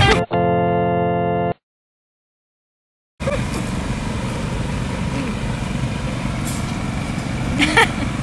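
Edited soundtrack: guitar music cuts off, then a steady organ-like electronic tone lasts about a second, then dead silence for under two seconds. After that comes a steady outdoor hum like an idling engine, with a brief sharp sound near the end.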